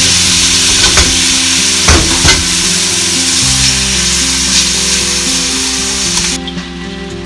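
Wet flat rice-flour pasta sizzling loudly in a hot aluminium frying pan as it is warmed, with a few sharp clicks of chopsticks against the pan as it is stirred. The sizzle stops abruptly near the end.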